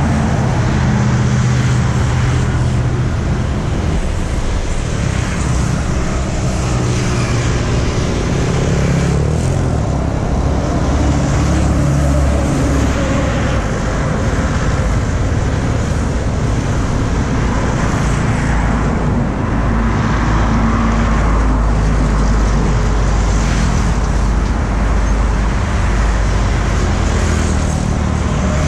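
Steady road traffic passing close by: motorbikes, cars and trucks going past, their engines and tyres rising and fading one after another.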